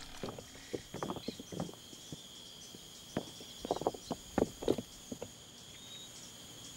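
Footsteps crunching in dry leaf litter: scattered, irregular, faint steps, with a steady high-pitched whine throughout.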